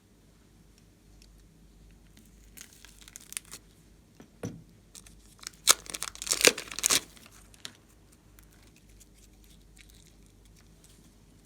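Slime being handled by hand, crackling and tearing in quick clicky bursts, loudest about five to seven seconds in.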